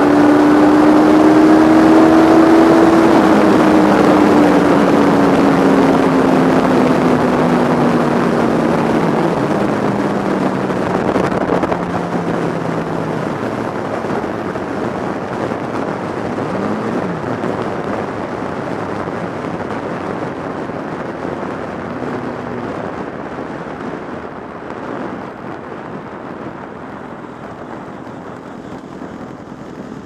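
Wind rushing over a camera on a moving sport motorcycle, with the bike's engine note falling steadily over the first dozen seconds as it slows down. The wind noise fades gradually as the speed drops.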